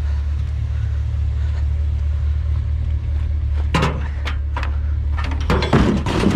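Steady low drone of a running vehicle engine, with a few sharp knocks about four seconds in and a burst of clattering near the end.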